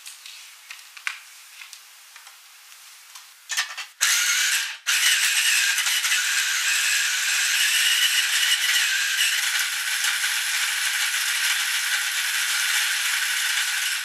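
Electric mini food chopper mincing chunks of fresh ginger, the pieces rattling against the plastic bowl. It gives a couple of short pulses about three and a half seconds in, then runs steadily for about nine seconds and cuts off at the end. Faint clicks come before it starts.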